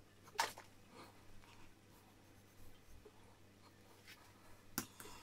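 Faint scraping of a knife cutting through pork flank on a plastic cutting board, with two sharp clicks, one about half a second in and one near the end.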